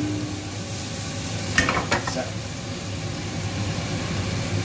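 Sliced spring onion, chilli, ginger and garlic sizzling in a frying pan, with two quick clinks of the pan or spoon about one and a half seconds in.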